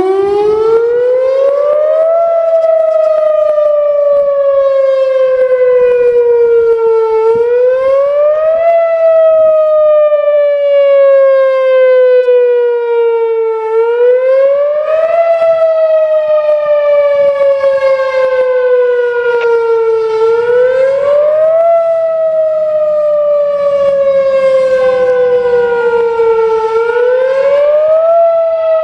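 Whelen Vortex R-4 outdoor tornado warning siren sounding in its fast wail for a test: the tone climbs as it winds up at the start, then repeatedly rises quickly and sinks slowly, about every six and a half seconds.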